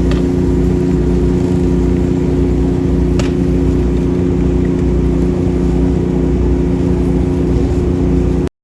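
An engine running steadily with a constant hum and a low rumble, which cuts off abruptly near the end.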